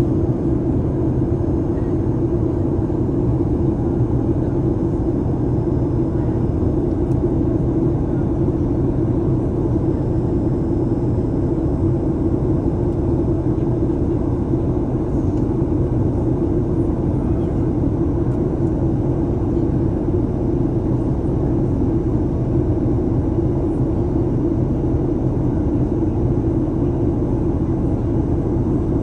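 Steady cabin drone of a Boeing 737 MAX 8 airliner in flight: engine and airflow noise heard from inside the cabin, an even low rumble that holds constant throughout.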